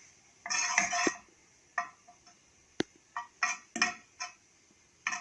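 A metal spoon clinking and scraping against a cooking pot on the stove in short, separate knocks as a lump of ghee is put into the pot, with a cluster of knocks about a second in and a quicker run of them past the midpoint.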